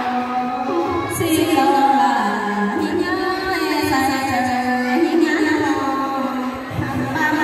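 Women singing a Thái folk song (hát Thái) into microphones, in long drawn-out notes that step and slide between pitches.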